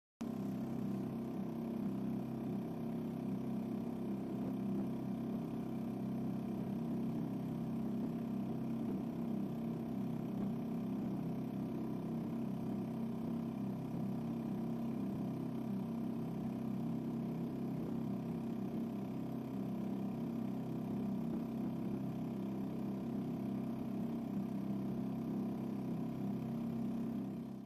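Small boat's outboard motor running steadily at constant speed, carrying the boat across the water.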